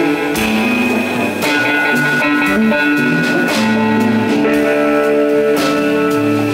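Rock band playing live: electric guitar and bass holding sustained notes over a drum kit, with cymbal crashes a few times.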